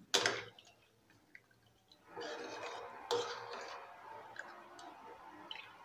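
A metal ladle stirring chicken pieces in watery soup inside a pressure cooker: faint sloshing of the liquid, with a sharp knock of the ladle at the start and another about three seconds in.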